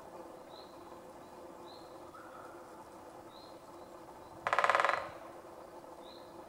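Great spotted woodpecker drumming: one rapid roll of evenly spaced strikes lasting about half a second, a little past the middle.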